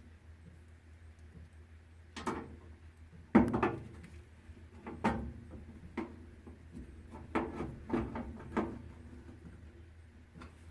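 Irregular knocks and clatters of tools and parts being handled, about eight of them, the loudest about three and a half seconds in, over a low steady hum.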